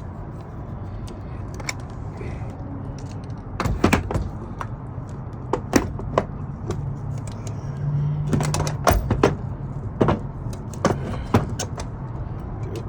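Scattered metallic clicks, clinks and knocks of carburetor parts and hand tools being handled, most frequent in the middle, over a steady low hum.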